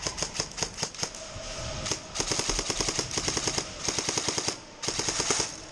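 Matrix S&T M4 airsoft electric gun firing: a quick run of single shots in the first second, then three full-auto bursts, the last ending just before the close.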